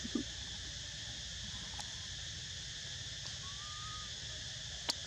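Steady high droning chorus of insects, unbroken throughout, over a low rumble. It is broken by a short low sound just after the start, a faint brief whistle near four seconds in, and a click near the end.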